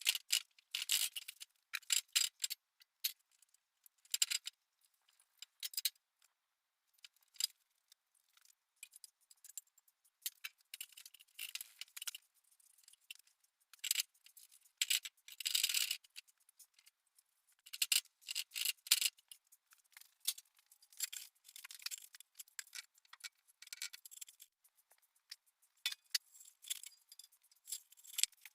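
Ceramic-fibre Superwool blanket being handled and pressed into a forge shell: faint, irregular dry rustling and scratching in short spurts with pauses between them.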